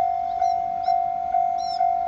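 Japanese level-crossing alarm (踏切警報機) ringing: a single electronic bell tone struck about twice a second, each stroke fading before the next. It is the warning that a train is approaching the crossing.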